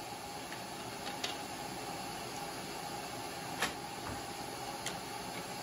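A few light wooden knocks as white oak and purpleheart coaster blanks are set down on a plywood crosscut sled, the sharpest about two-thirds of the way through, over a steady background hum.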